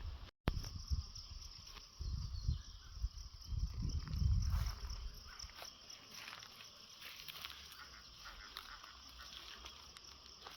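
Jungle ambience: a steady high insect drone, with scattered rustles and clicks and some low thumps in the first half that die away, leaving the insects.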